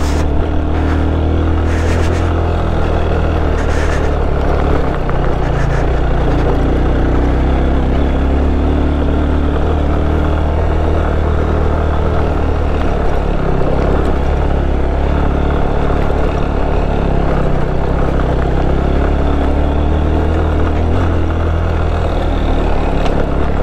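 Motorcycle engine running steadily while riding, with a few short knocks in the first four seconds.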